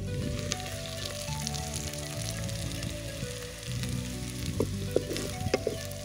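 Sliced onions, dried red chillies and a ginger-garlic-fennel paste sizzling in hot groundnut oil in a clay pot, stirred with a wooden spatula, with fine crackling throughout and a few sharp clicks near the end. Soft background music plays underneath.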